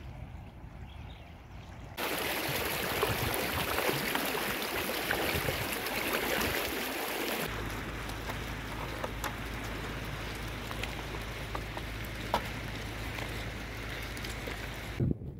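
Steady rush of flowing irrigation-canal water, starting abruptly about two seconds in. After an abrupt change about seven seconds in, a flock of goats walks over stony ground with scattered hoof clicks, over a low rumble of wind on the microphone.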